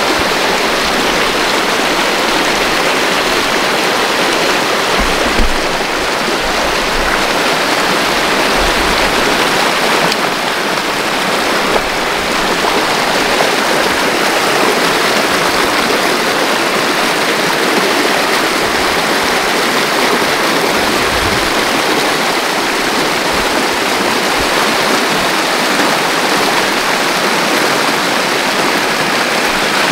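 Fast, muddy floodwater rushing down a creek swollen by heavy rain: a loud, steady rush of water.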